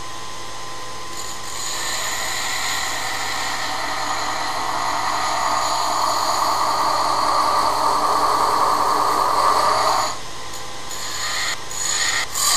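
Belt sander running with a steady hum while a welded stainless-steel sheet-metal dome is pressed against its belt at the contact wheel, grinding off the oversized material at the welded corners. The grinding builds up from about a second in and holds steady, stops about ten seconds in as the piece is lifted off, then comes back in a few short touches near the end.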